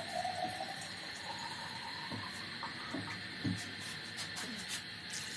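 Pork pieces frying in oil in an aluminium wok: a steady sizzle with a few scattered small pops.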